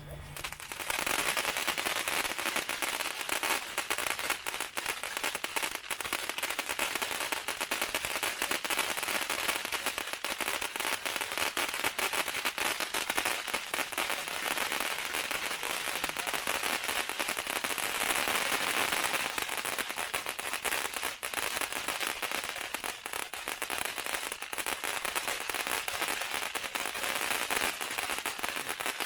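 Ground firework fountain going off: a steady hiss of sparks with dense, rapid crackling throughout, starting about a second in.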